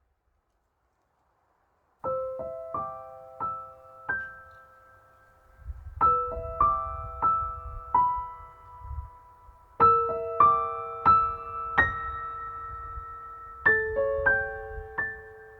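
Background music: a gentle piano melody of single struck notes that ring and fade, starting about two seconds in after a short silence.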